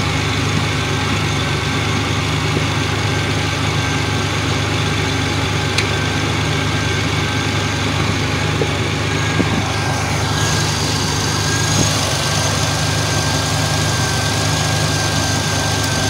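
2002 Ford Ranger's engine idling steadily. About ten seconds in, a higher hiss and a thin steady whine join it.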